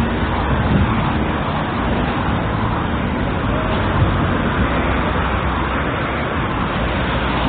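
Steady road traffic noise: cars running past, with no break.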